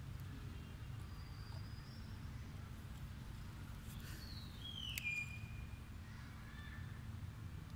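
Forest ambience with a steady low rumble of wind on the microphone and a few faint, thin, high animal calls, one sliding down in pitch about four to five seconds in.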